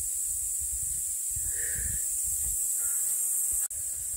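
Forest ambience: a steady high hiss over uneven low rumbling on the microphone, with a single short bird call about a second and a half in and a sharp click near the end.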